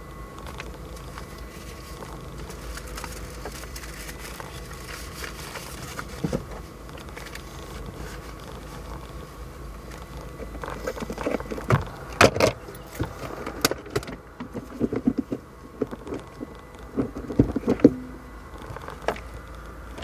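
Inside a car: a steady low hum, then from about halfway a quick run of clicks, knocks and rattles from things being handled in the cabin.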